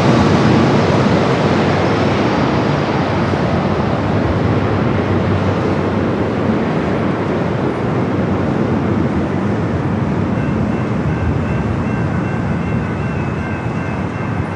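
Jet airliner's engine noise, loud at first and slowly fading as the aircraft moves away, the hiss at the top dying off first. A faint steady whine comes in near the end.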